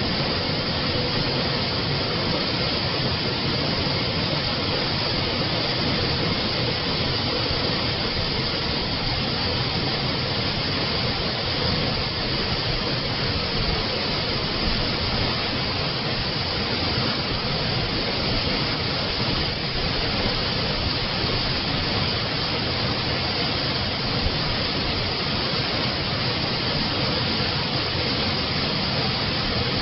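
Water from a spring flowing, making a steady, unbroken rushing noise.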